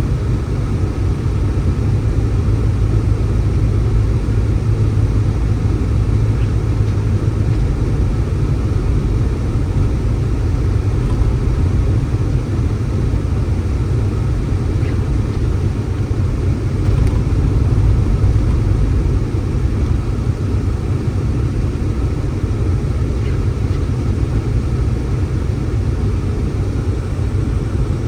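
Blizzard wind buffeting the microphone: a loud, steady low rumble.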